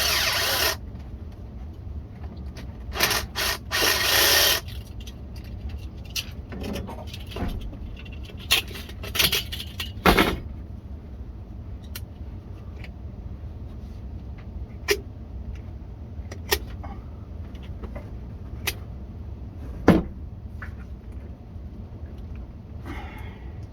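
Hand tools working on a cast-iron drain pipe: harsh scraping bursts in the first few seconds, then scattered sharp knocks and clicks, over a steady low hum.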